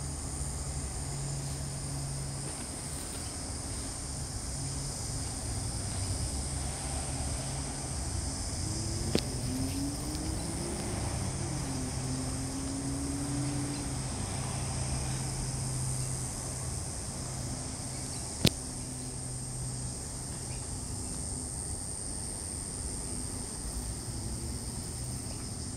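Low, distant drone of an aircraft passing high overhead, under a steady high-pitched chirring of insects. A wavering tone rises and falls for a few seconds in the middle, and two sharp clicks stand out, about nine seconds in and again about eighteen seconds in.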